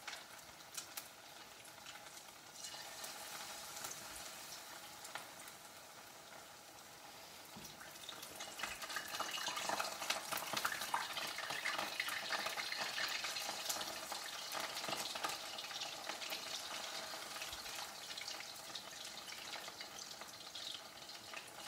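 Cornstarch-coated chicken thigh pieces shallow-frying in hot oil in a wok: a steady sizzle with fine crackling, growing louder about eight seconds in as more pieces go into the oil.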